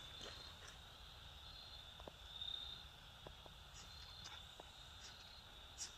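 Faint, steady high-pitched insect chirping that swells and fades a little, with a few soft clicks.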